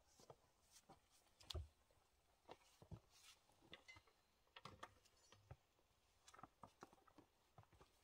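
Near silence with faint, scattered crunches and small knocks: footsteps in snow and handling around the machine. The loudest comes about a second and a half in.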